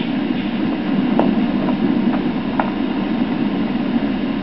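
Steady low rumbling background noise, with a few faint clicks between about one and three seconds in.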